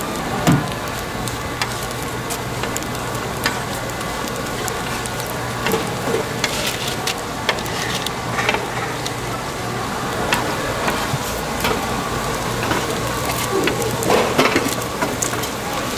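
Flat dumplings (napjak mandu) sizzling in oil, with a steady crackle. Scattered light clicks come from metal tongs turning the dumplings, a few of them louder in the middle and near the end.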